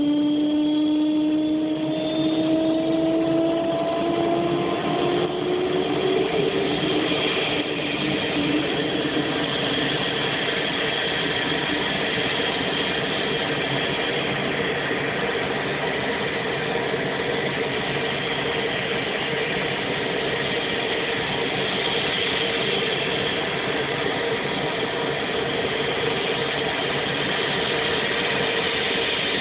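Turboprop engine of a T-34C Turbo Mentor (Pratt & Whitney PT6A) running on the ground. Its tone rises in pitch over the first five or six seconds, then it runs steadily.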